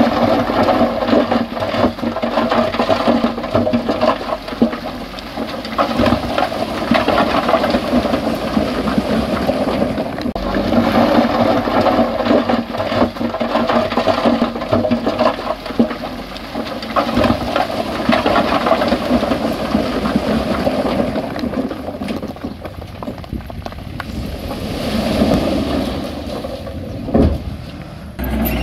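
Rocky soil and stones sliding and tumbling, a dense crackle of small knocks and rattles. It eases off a little near the end.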